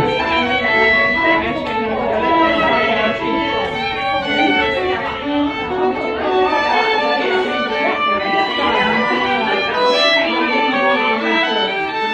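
Two violins playing a melody together, with a murmur of voices in the room behind them.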